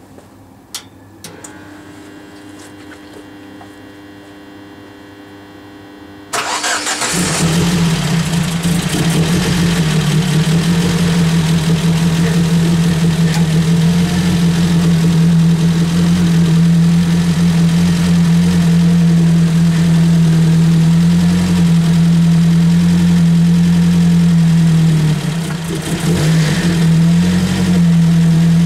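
Ford Focus engine started about six seconds in, after a few clicks, then idling steadily while the new silicone power steering hose is put under pressure.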